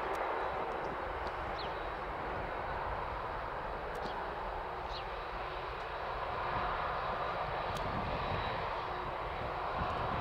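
Boeing 767-400ER's twin General Electric CF6-80C2 turbofan engines running at low thrust as the airliner taxis: a steady jet rush with a faint high whine.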